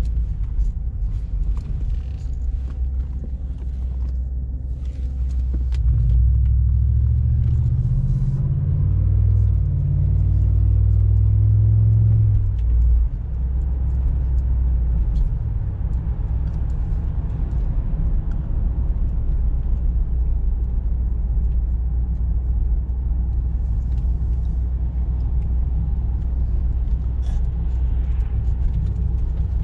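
Cadillac DeVille's Northstar V8 through a Thrush aftermarket exhaust with the resonator deleted, droning steadily while cruising, heard from inside the cabin. About six seconds in the engine pulls harder, rising in pitch and getting louder, then eases off sharply near thirteen seconds and settles back to a steady cruise.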